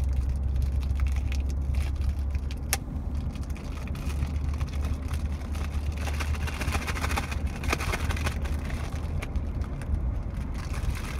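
Steady low rumble of a car cabin on the move, with a sharp click about three seconds in. Around six to eight seconds in, plastic wrap crinkles as it is picked and torn off a puzzle cube.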